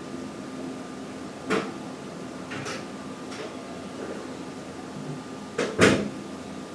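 A few indoor knocks and clacks, then two sharp bangs in quick succession near the end, the second the loudest, over a faint steady hum.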